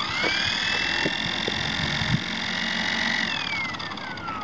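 Small electric RC motor on a test rig spinning up with a rising whine, holding a steady high whine at speed for about two seconds, then winding down with a falling whine near the end, during an RPM test.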